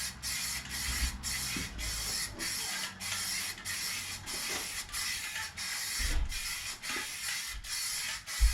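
Primer being sprayed onto a car hood: a steady hiss broken by short, regular dips about two or three times a second.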